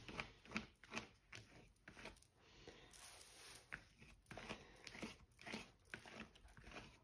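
Faint, irregular dabbing and crackling of acrylic paint being applied to paper, about two soft taps a second, with a brief scratchy rustle midway.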